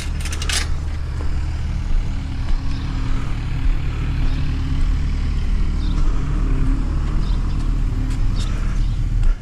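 A steady low mechanical hum, like an engine or motor running, with a few sharp clicks in the first second.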